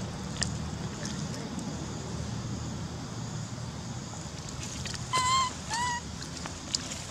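Two short squeaky calls about half a second apart, each falling slightly in pitch at the end, from a macaque among the group, over a steady outdoor hiss with a few faint clicks.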